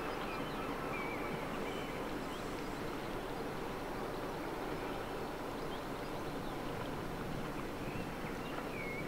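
Steady low rumble of a large cruise ship's engines as it passes close by on the river, with faint short bird calls now and then.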